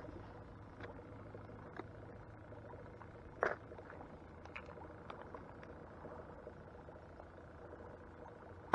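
Quiet lake with a faint steady low hum, broken by a few small clicks and knocks from handling the plastic tackle box, paddle and rods in a plastic kayak; the loudest is a sharp knock about three and a half seconds in.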